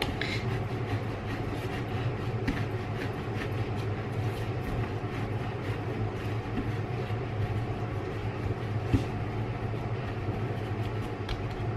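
A steady low hum, with a few faint soft knocks as hands press and roll bread dough into a log on a wooden board.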